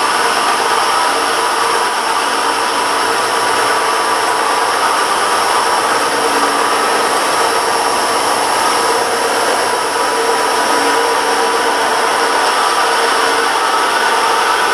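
The toothed cutter wheel of a spiraling tool cuts spiral grooves into a spinning wooden cane blank on a wood lathe. It makes a steady, dense cutting noise over the constant hum of the lathe motor.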